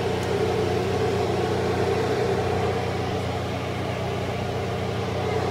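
Engine of a Chance Rides miniature park train locomotive running with a steady, even drone.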